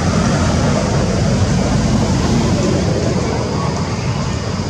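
Steady low rumble of outdoor background noise, with no distinct animal calls standing out.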